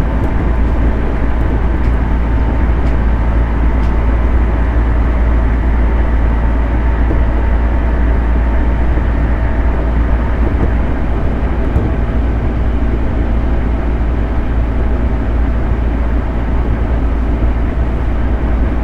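Running noise of a 211 series 5600 subseries electric multiple unit in motion: a steady rumble of wheels on rail, with a few faint steady tones over it.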